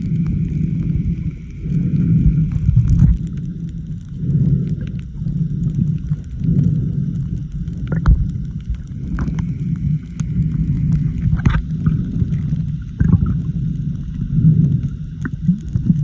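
Muffled underwater sound from a camera held just below the surface: a low rumble of moving water that swells and fades about once a second, under a faint steady hum. A few sharp clicks come in the second half.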